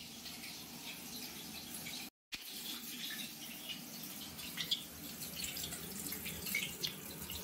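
Curry masala frying in oil in a pan: a low, steady sizzle with small crackles, cutting out briefly about two seconds in.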